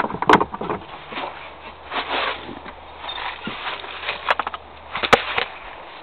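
Handling noise from a handheld camcorder: irregular rustles and bumps, with a few sharp clicks, the loudest about five seconds in.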